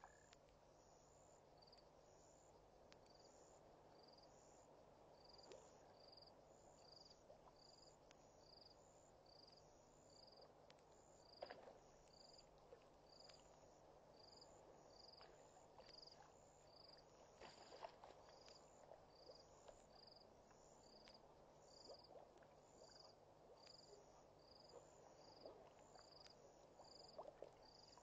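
Near silence with a faint night chorus: a cricket chirping evenly, about four chirps every three seconds, over a soft insect hiss, with a few small clicks.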